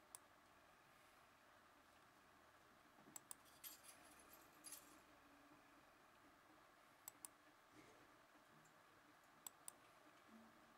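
Faint clicks of a computer mouse button, several scattered clicks, mostly in quick pairs, a few seconds apart, over quiet room tone.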